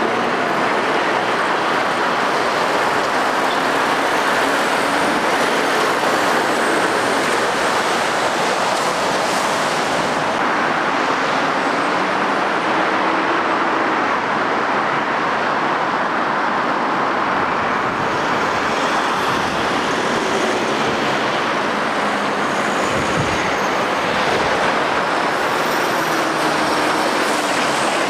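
Steady road traffic noise from articulated lorries and cars passing on a dual carriageway: tyre noise and diesel engines, with faint engine notes rising and falling as vehicles go by.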